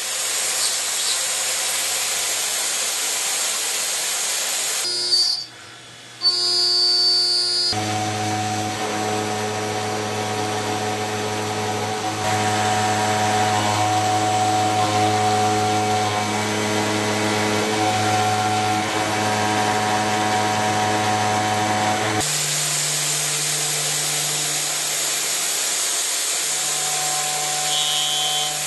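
Seco Minimaster Plus carbide end mill side- and trochoidal-milling a steel block in a machining spindle: a steady, whining cutting tone over hiss. Its pitch and level change abruptly a few times, with a brief quieter dip about five to six seconds in.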